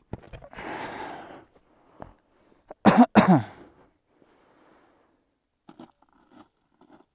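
A person coughing twice in quick succession about three seconds in, each cough falling in pitch, after a breathy rush of noise near the start. Faint short ticks follow near the end.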